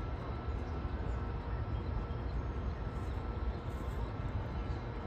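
Steady low outdoor rumble with a faint constant hum over it; no duckling calls stand out.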